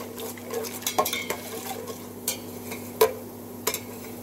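Metal slotted spoon stirring cardamom and sliced almonds frying in ghee in a steel pot, the spoon clinking and scraping against the pot about once a second over a light sizzle. A steady low hum runs underneath.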